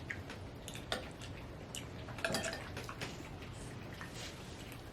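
Scattered light clinks and taps of spoons against bowls during eating, over a steady faint patter of rain.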